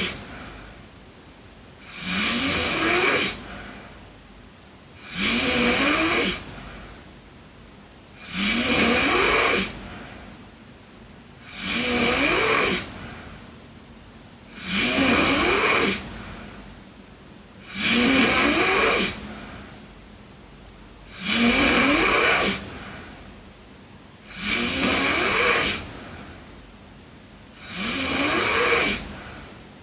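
A sleeping girl snoring in a steady rhythm, about one snore every three seconds, each snore rising in pitch.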